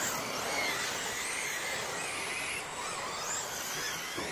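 Radio-controlled short course trucks racing on a dirt track, their brushless electric motors whining in several overlapping tones that rise and fall in pitch as the trucks accelerate and pass.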